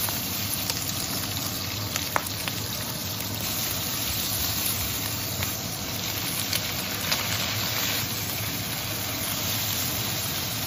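Sliced meat stir-frying in a wok over a gas flame: a steady sizzle with small clicks and scrapes of the spatula against the pan, as sliced green peppers are tipped in and tossed.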